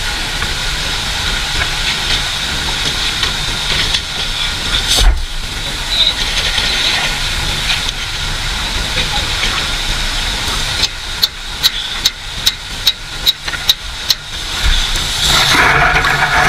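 Kubota tractor's diesel engine running steadily under a hiss, with a rapid series of about ten sharp knocks about two-thirds of the way through and a louder rushing noise near the end.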